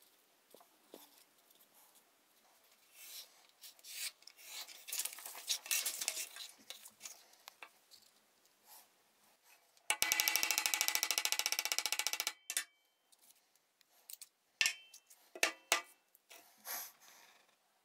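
Hands handling paper and metal die parts on a hardboard bench: paper rustling and a few light knocks, with a loud, fast, even buzz for about two and a half seconds near the middle.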